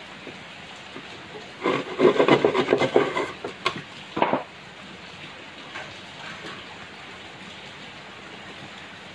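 Hand saw rasping through a thin wooden board in a quick run of strokes, then two sharp knocks as the cut is finished. Steady rain hiss underneath.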